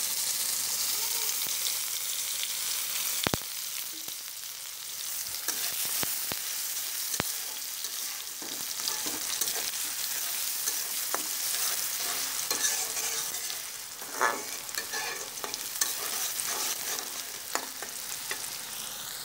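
Sliced onions sizzling steadily in hot oil in a wok, stirred with a spatula that clicks and scrapes against the pan now and then.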